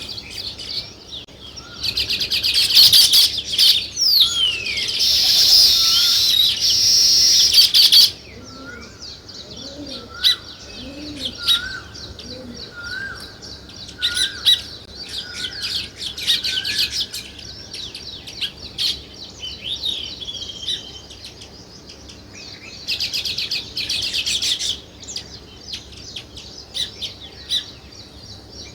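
A group of sparrows chirping. Dense, loud bouts of many overlapping chirps come about two seconds in, lasting some six seconds, and again briefly past the twenty-second mark, with scattered single chirps in between.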